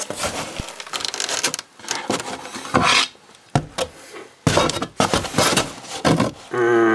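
Cardboard box being handled and folded into shape: irregular rubbing, scraping and flapping of cardboard, with a metal chainsaw bar going into the box. A steady humming tone sets in near the end.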